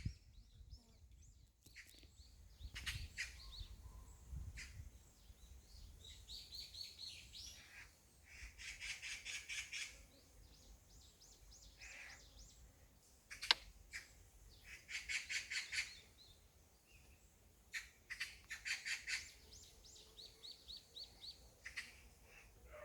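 Magpie chattering: three harsh rattling series of rapid notes, each about two seconds long, with other small birds chirping in between. A single sharp click a little past halfway.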